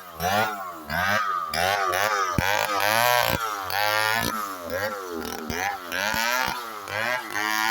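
Chainsaw cutting through the trunk, its engine pitch dipping and recovering about twice a second as the bar loads and frees in the cut.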